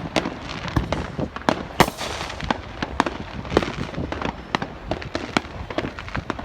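Many fireworks going off from all directions: irregular sharp bangs and cracks, often several a second, some near and loud and others fainter, over a continuous rumble of distant bursts.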